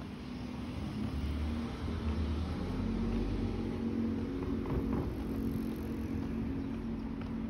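Road traffic: a car engine running at low speed, a steady low hum that grows louder over the first two seconds or so and then holds.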